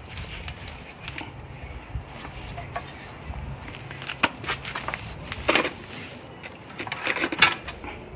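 An aluminium radiator being handled and fitted into a car's radiator support: scattered light knocks, clicks and scrapes, with a few sharper knocks about four and five and a half seconds in and again near the end.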